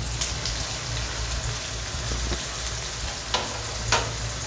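Sliced onions sizzling and crackling in hot mustard oil in an iron kadhai, over a steady low hum. Two sharp clicks come near the end.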